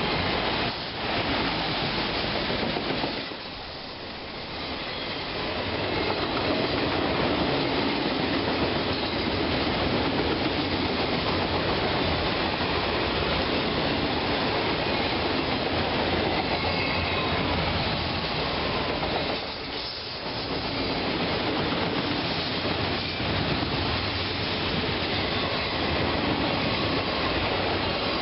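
A train rolling past at close range, its wheels clattering over the rails with some wheel squeal; the noise eases briefly twice, about four seconds in and again about twenty seconds in.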